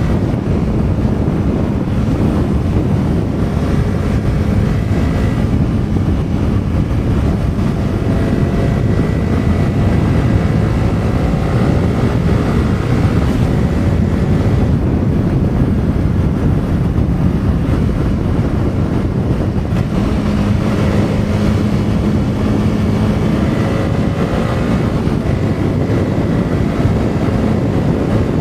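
Heavy wind buffeting the microphone at riding speed on a stock motorcycle. The quiet stock engine is faintly heard underneath, its pitch climbing and dropping back several times.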